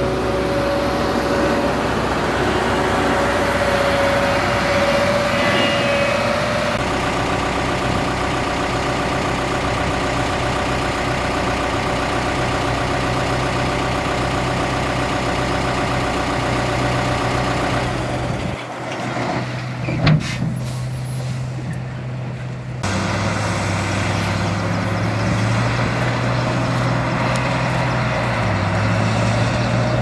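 Heavy diesel engines of road-construction machinery running, their tone shifting several times, with a brief sharp burst about twenty seconds in.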